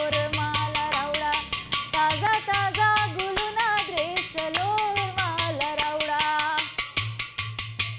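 A woman singing a melody to a hand drum played in a steady beat, over a fast, even clicking beat. Her voice drops out about two-thirds of the way through, and the drum stops near the end.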